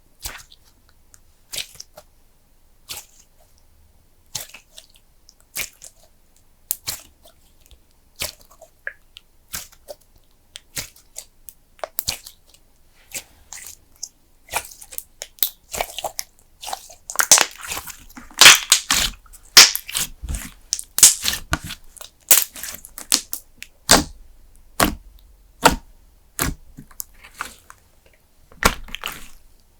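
Thick custard-base slime being pressed, poked and stretched by hand, making sticky clicks and small pops. They come about one a second at first, then quick and loud from a little past halfway before thinning out again.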